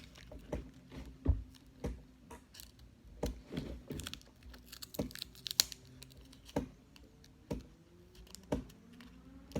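Paper and craft materials being handled on a table: irregular light taps and clicks, roughly one every half second to a second, with faint paper crinkling.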